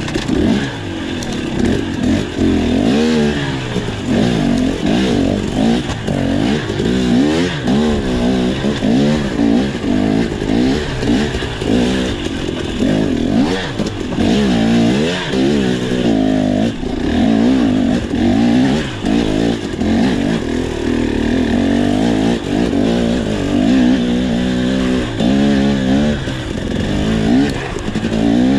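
Enduro dirt bike engine revving up and down in quick repeated bursts, throttle blipped over and over while the bike is ridden through rocky trail.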